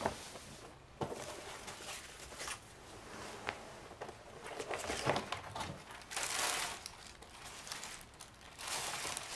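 Paper wrapping rustling and crinkling in irregular bursts as a gift box is opened and its contents are lifted out. The rustling is loudest about six to seven seconds in.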